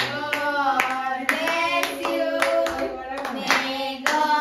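A few people singing a birthday song while clapping in time, about two claps a second.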